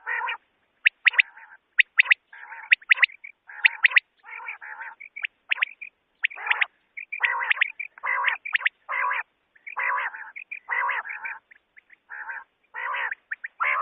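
Common quail calling: short, sharp high notes mixed with lower, fuller calls about half a second long that come roughly once a second.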